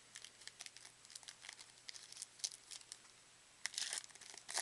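A trading card pack's wrapper being crinkled and torn open by hand: a run of small crackling rustles and clicks, with a louder burst of crinkling a little before the end.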